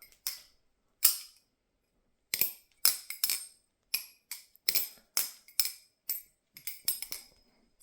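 Pinless AKD Orca V1 butterfly knife (balisong) being flipped: irregular sharp metallic clacks of the handles and blade knocking together, each with a short bright ring, about two a second.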